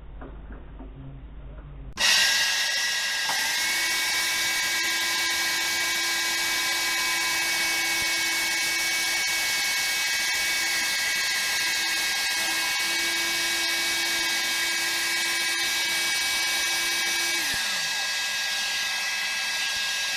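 Small high-speed electric power tool sanding or grinding: a steady high whine over a hissing grind. It starts abruptly about two seconds in and winds down near the end.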